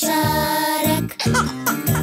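Children's song music with a steady beat: a long held note in the first second, then short sliding notes, with no singing.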